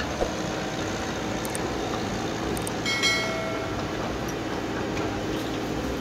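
Komatsu tracked excavator's diesel engine running steadily, with a brief high whine about three seconds in.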